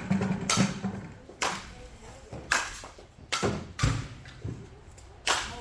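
Softball batting practice: a series of sharp hits, roughly one a second, each with a short ringing tail.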